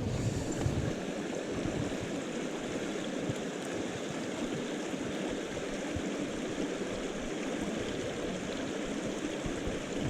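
Steady rush of a mountain stream's flowing water, with a little wind on the microphone near the start.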